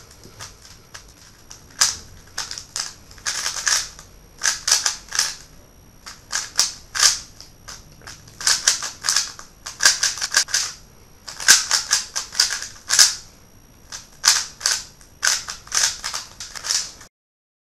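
A WeiLong GTS v2 M 3x3 speedcube being turned fast in a timed solve: rapid plastic clacking of the layers in bursts of several turns, with short pauses between bursts. The sound cuts off suddenly near the end.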